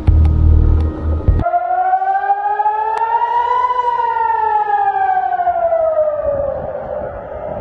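A civil defense air-raid siren wails: its pitch rises for about two seconds, then falls slowly. Before it, a loud low sound cuts off abruptly about a second and a half in.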